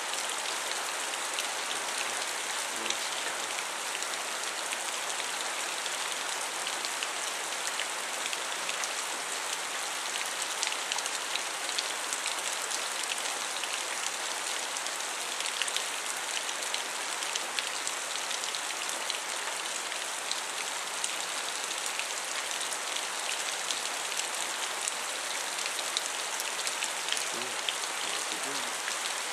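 Rain falling steadily and hard during a thunderstorm, with a dense ticking of individual drops close by; no thunder is heard.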